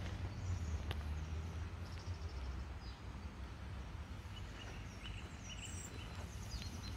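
Outdoor ambience: a steady low rumble with scattered faint high bird chirps and one brief click about a second in.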